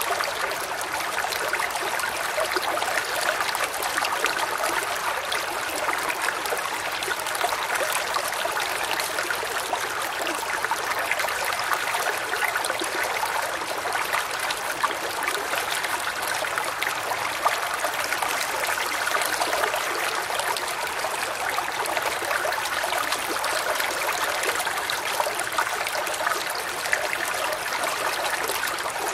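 Small woodland creek flowing steadily, a continuous babble and trickle of water over stones with fine splashes and bubbles.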